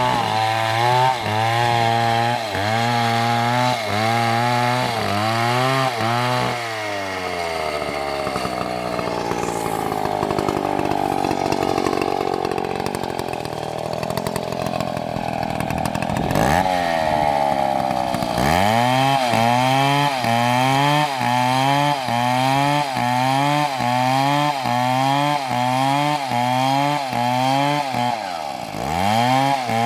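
Large chainsaw cutting through a big tree trunk. The engine's pitch dips and recovers about twice a second as it labours in the cut, smooths out to a steadier, higher run for several seconds in the middle, then returns to the same rhythmic labouring.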